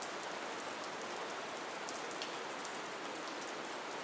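Steady rain falling, with many single drops ticking sharply through the even hiss.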